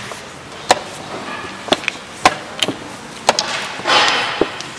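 Wooden chess pieces knocked down onto a wooden board and digital chess clock buttons pressed in a fast exchange of moves: about eight sharp clacks, with a brief rustle near the end.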